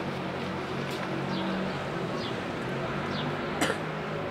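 Steady outdoor background noise with a low hum, birds giving short high chirps that fall in pitch every second or so, and one sharp click about three and a half seconds in.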